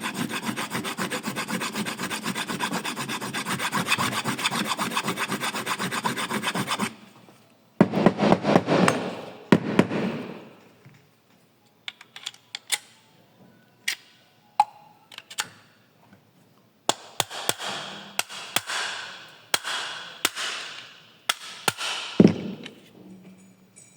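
Hand filing on a zamak pistol part: fast rasping strokes, then a pause with a few sharp clicks and knocks, then more bursts of rasping.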